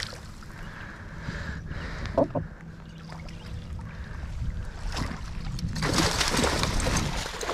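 A hooked musky thrashing at the surface and splashing hard as it is scooped into a landing net beside the boat, starting about six seconds in, over a steady low rumble of wind and water.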